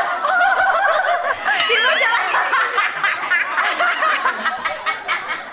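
Several people laughing at once, their voices overlapping in a lively, unbroken stream of laughter.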